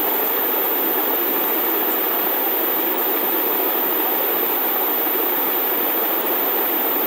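Steady, even hiss of the recording's background noise, with no other sound over it.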